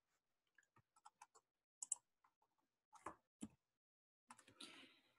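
Near silence broken by a dozen or so faint, scattered short clicks, and a short soft hiss near the end.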